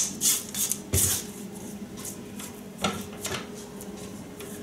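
A spatula scraping creamed butter and sugar from the sides of a stainless steel stand-mixer bowl and from the flat beater. It makes several short scraping strokes in the first second and a couple more about three seconds in.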